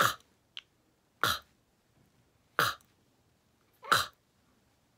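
A woman's voiceless 'k' sound, repeated four times about a second and a quarter apart. Each is a short breathy burst, made with the back of the tongue while a finger rests in the mouth.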